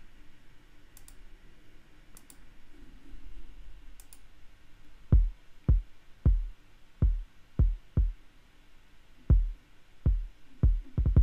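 Unprocessed hip-hop kick drum playing alone through the DAW: about a dozen short, deep hits in an uneven groove, starting about five seconds in, each falling in pitch. It is the dry 'before' kick with its saturation and compression chain switched off, and it sounds 'dead'. A few faint clicks come before the kicks start.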